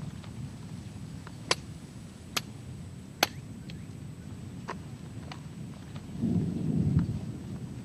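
Dry thorny branches being cut and broken: three loud sharp cracks about a second apart, then fainter snaps, and a brief low rushing noise near the end.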